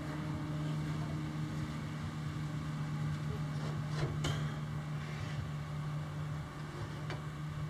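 Old thickness planer running under electric power with a steady low hum, with light knocks about four and seven seconds in.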